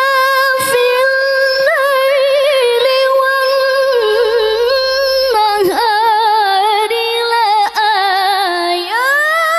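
A woman reciting the Quran in melodic tilawah style into a microphone. She holds long notes ornamented with quick wavering trills, moves through higher wavering phrases, pauses briefly for breath near the end, and begins a new phrase that glides upward.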